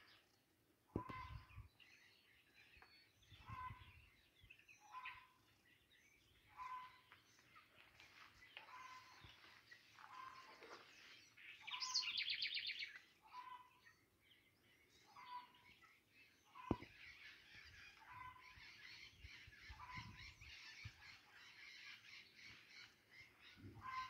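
Birds singing in the garden: a short call repeated about every second and a half, mixed with higher chirps and a burst of fast, high trilling about twelve seconds in. A single sharp knock comes about seventeen seconds in.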